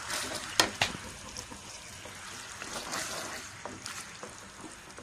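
A wooden spatula stirring a thick, bubbling jackfruit and jaggery mixture in a non-stick pan, with a soft sizzle and scraping. Two sharp knocks of the spatula against the pan come close together just under a second in.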